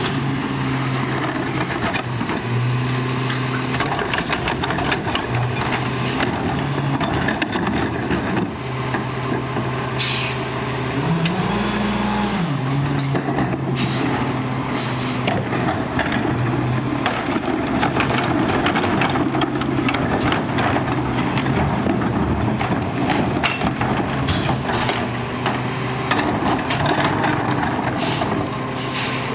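Garbage truck engine running steadily, revving up briefly about eleven seconds in, with several short air-brake hisses.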